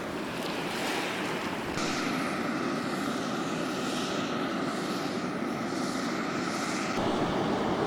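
Steam rushing and hissing steadily from a fumarole vent in a geothermal field. The sound changes abruptly about two seconds in and again near the end.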